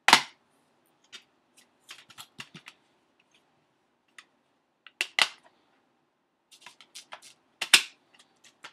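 Plastic DVD keep case being handled, opened and shut: a sharp snap at the start, scattered small clicks and rattles, then two more loud snaps about five seconds in and near the end.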